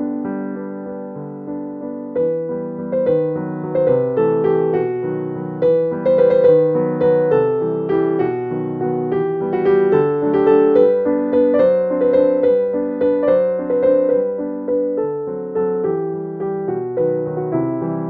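Background piano music: a running melody of separate notes over chords.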